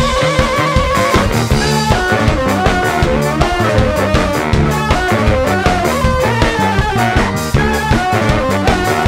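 A live band playing upbeat music: a drum kit keeping a steady beat under bass guitar and a saxophone melody.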